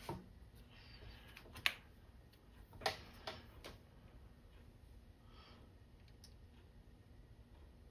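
Metal pliers clicking and tapping as they are picked up and handled: about five sharp clicks over the first four seconds.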